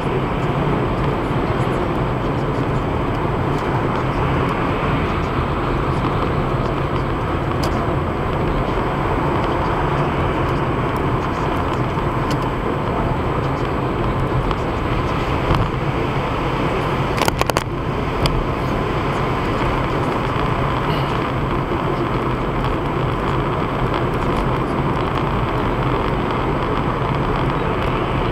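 Steady tyre and road noise with engine hum, heard from inside a car cruising at motorway speed. A short cluster of clicks comes about two-thirds of the way through.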